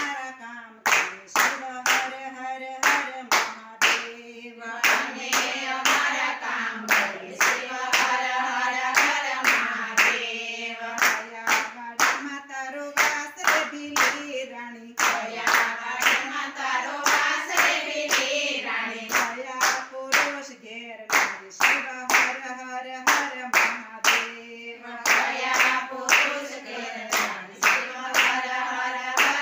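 A group of women singing a Gujarati Shiva bhajan together, clapping their hands in a steady rhythm.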